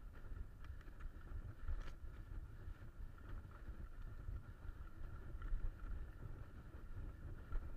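Wind rumbling on the microphone over the running noise of a mountain bike riding fast down a dirt trail, with scattered light rattles and knocks as it goes over bumps.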